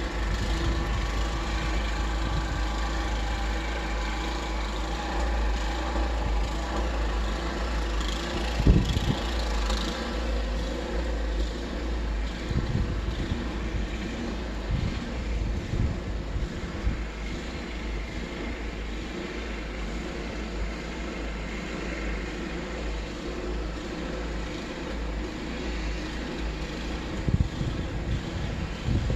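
A vehicle engine running steadily, with a strong low rumble and a few short knocks.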